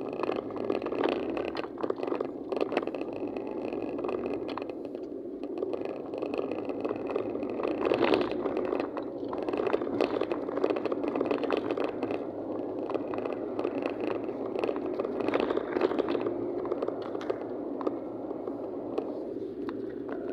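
Road and engine noise heard from inside a moving car's cabin: a steady rumble, with many small rattles and clicks throughout.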